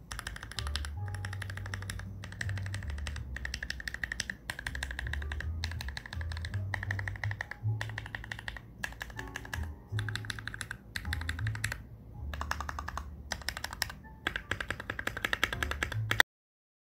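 Typing on a Novelkeys NK65 Entry Edition mechanical keyboard with lubed Gateron Ink Black v2 linear switches and PBT keycaps: runs of fast keystrokes broken by short pauses. Background music with a bass line plays underneath, and both stop abruptly near the end.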